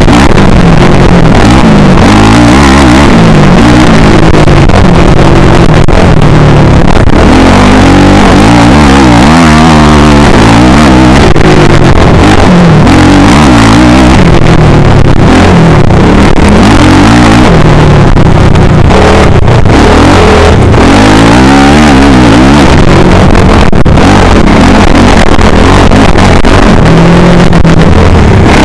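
Motocross bike engine heard from an onboard camera, loud, revving up and dropping back again and again as the rider accelerates and shifts around the dirt track.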